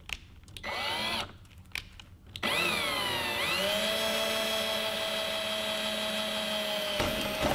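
Cordless drill running: a short burst that speeds up, then a longer run that speeds up, dips and holds a steady whine for about four seconds before stopping abruptly. The bit is drilling into the fibreglass rudder bottom fairing.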